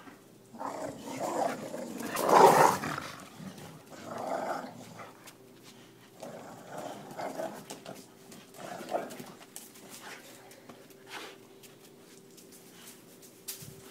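Boxer dogs growling in play, in irregular bursts, the loudest about two and a half seconds in.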